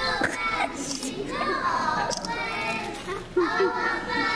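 Children singing with high young voices.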